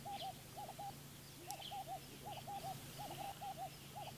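A bird calling faintly: short, wavering notes at a middle pitch, given in quick groups of two or three about once a second, with a fainter, lower call under some groups and a few faint high chirps.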